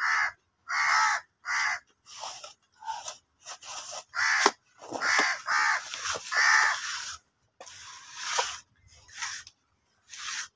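Crows cawing repeatedly: short calls come in groups, with pauses of a second or two between them.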